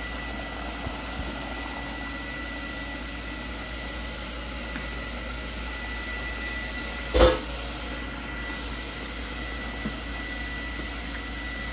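Steady kitchen background hum with a thin high whine, and a single short knock about seven seconds in.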